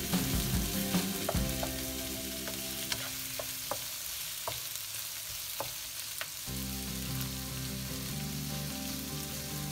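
Pork belly, potato chunks and onion sizzling in a non-stick wok as they are stir-fried, with a wooden spatula stirring and scraping and giving scattered light clicks against the pan.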